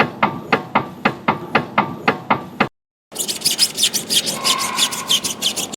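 Rhythmic mechanical knocking, about four strokes a second, that cuts off suddenly; after a short gap comes a higher, scraping rhythm at about the same pace. These are presented as examples of the kinds of abnormal noises a car can make.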